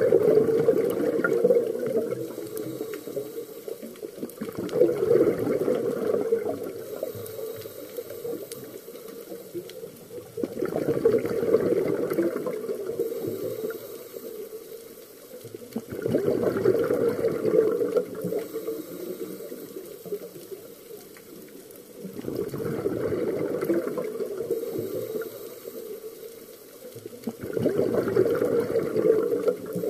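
A scuba diver's exhaled bubbles from the regulator, heard underwater: a bubbling rush comes in bursts of two to three seconds about every five to six seconds, six times, with quieter stretches between breaths.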